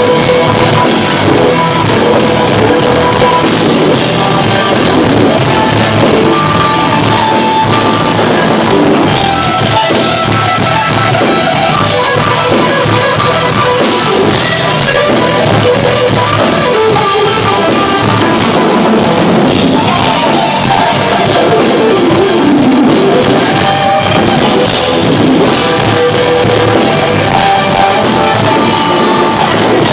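Live instrumental rock played loud by a band. A lead electric guitar plays held notes that bend and waver, over a pounding drum kit.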